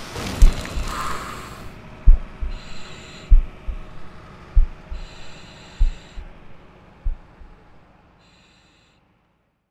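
Hissing spray of a firefighting foam nozzle that cuts off after about a second and a half, giving way to a slow, heartbeat-like soundtrack thumping, about one beat every 1.2 s, with three short bursts of high ringing tones; it fades out near the end.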